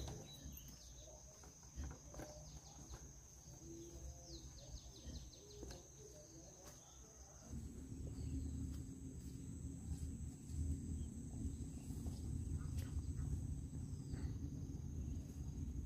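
Quiet rural ambience: insects give a steady high-pitched drone, with a few short bird chirps. About halfway through, a low steady rumble comes in and stays.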